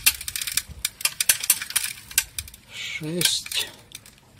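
Rapid clicking and rattling from a homemade hand-pushed seeder's roller chain drive and seed-metering unit as its drive wheel is turned slowly by hand. The clicks thin out after about two and a half seconds.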